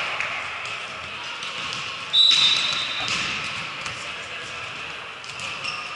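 Gym hubbub of players' voices with scattered thuds of balls being hit; about two seconds in a referee's whistle blows once, one shrill steady tone lasting about a second and a half.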